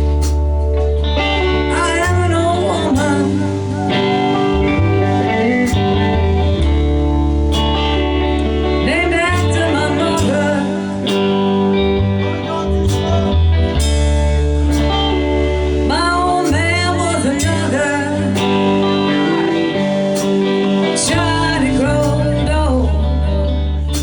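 Live blues band playing: lead guitar with bent notes over sustained bass and a steady drum beat.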